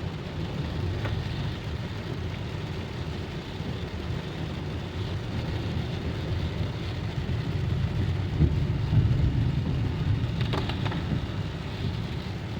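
Inside a moving car at about 35–40 mph in the rain, with the wipers off: steady low road and tyre rumble with the hiss of rain on the windshield.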